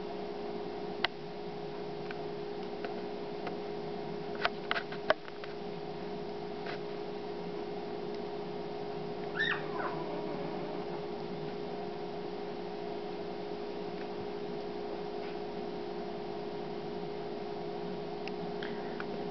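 A litter of newborn Doberman puppies nursing, with one short squeak that falls in pitch from a puppy about nine seconds in. Under it runs a steady low hum, with a few faint clicks.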